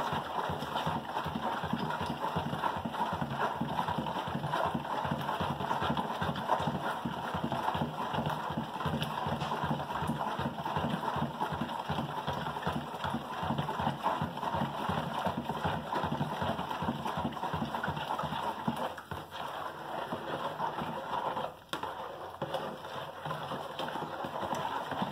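Long spoon stirring washing powder and baking soda into hot water in a plastic mixing bowl to dissolve them. The spoon knocks and scrapes against the bowl in a fast, continuous clatter that pauses briefly twice near the end.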